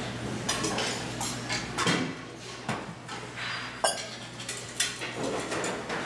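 Serving utensils and plates clinking and clattering against stainless steel food containers in irregular knocks, with the sharpest clink about four seconds in.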